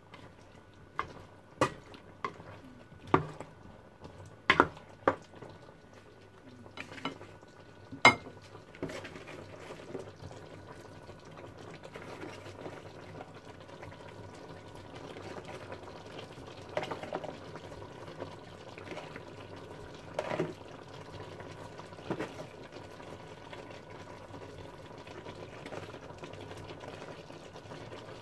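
A cooking utensil clacking and scraping against a stainless steel pan as vegetables are stirred, with sharp knocks over the first eight seconds. After that comes a steady hiss of the vegetables cooking in the pan, broken by a few knocks as broccoli is tipped in from a plastic bowl.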